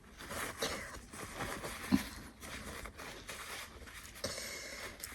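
Close rustling and scratching noises from a twisted paper strip being worked in the nostril to bring on a sneeze, with one sharp click about two seconds in.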